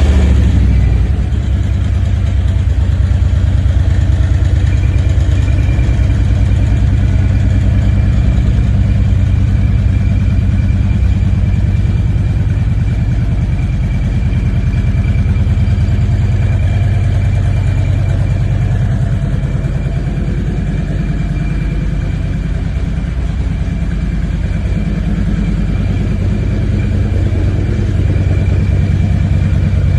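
Harley-Davidson Ultra Limited 2017's Milwaukee-Eight 107 V-twin idling steadily through a true-dual Kerker aftermarket exhaust, with a deep, even pulsing rumble.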